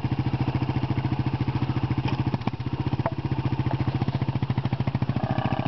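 Motorcycle engine idling steadily close by, a loud, even, rapid beat that holds the same pitch throughout.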